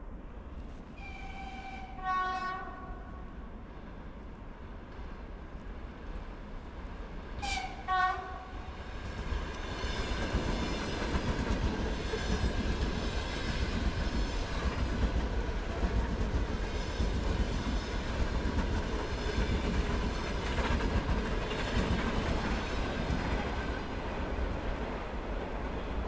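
Electric commuter train sounding two short horn blasts about six seconds apart as it approaches. It then passes close by with a loud, steady rumble of wheels on rails and a whine that last almost to the end.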